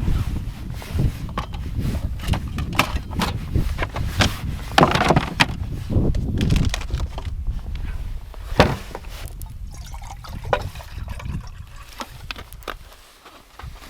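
Water splashing and trickling amid irregular knocks and clatters, over a low rumble.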